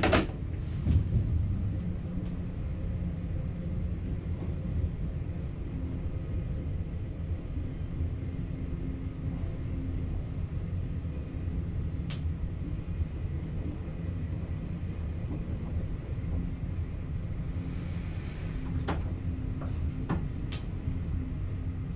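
Steady low rumble of a VIRM double-deck electric train heard inside the driver's cab, with a faint steady hum, a few sharp clicks and a brief hiss near the end.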